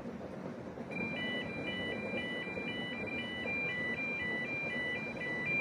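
UK level crossing warning alarm starting about a second in: high electronic tones switching rapidly back and forth, the signal that a train is approaching the crossing. A steady low rumbling noise runs beneath it.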